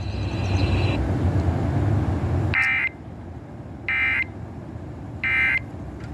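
Broadcast hiss and rumble, then the Emergency Alert System end-of-message signal: three short, identical digital data bursts about 1.3 s apart, marking the end of the alert.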